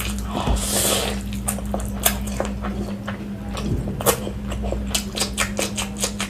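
Close-miked wet eating sounds: chewing and lip smacking on saucy chicken biryani, a string of short sharp smacks that come closer together in the second half.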